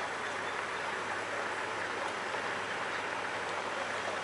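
Steady rushing noise of a convoy of pickups and SUVs driving past on a dirt road, mostly tyre noise on the gravel surface.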